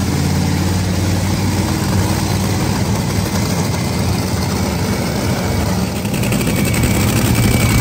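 Top fuel dragster's supercharged nitromethane V8 idling loudly and steadily during a pit warm-up, a little louder near the end.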